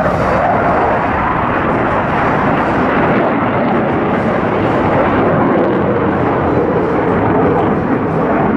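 Aircraft flying past, a loud engine roar whose pitch slides slowly downward as it goes by.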